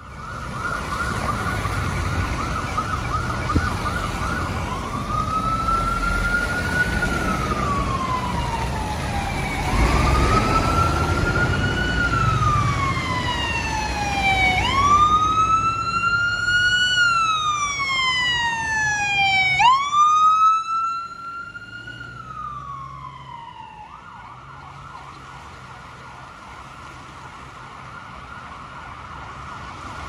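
Emergency vehicle siren: a rapid yelp warble at first, then a slow wail rising and falling about every five seconds. After the level drops, a quieter fast yelp runs through the last several seconds.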